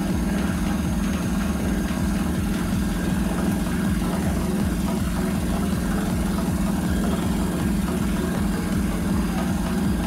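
Front-loading washing machine running with its drum spinning: a steady low mechanical hum with rumble beneath, unchanged throughout.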